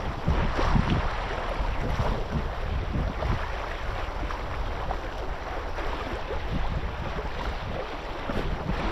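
Wind buffeting the microphone over water lapping and splashing, a steady rough noise with a few faint knocks.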